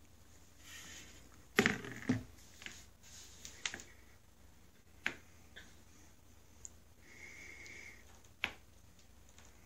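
A few sharp taps and scratches on cardboard, spaced out irregularly, the loudest about a second and a half in: cats pawing and batting a small ball around inside a cardboard box.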